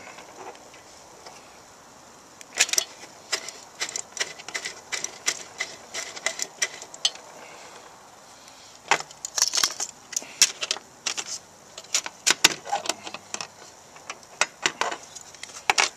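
Metal parts of a small wood-burning stove clinking and rattling as they are handled and worked at to free a part. The sound comes in irregular clusters of sharp clicks, with a quieter spell midway.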